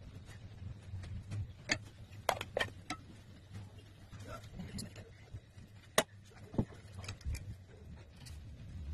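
Scattered light clinks and knocks of a steel strainer and utensils against a steel cooking pot while rice and garnish are layered in, over a low steady hum.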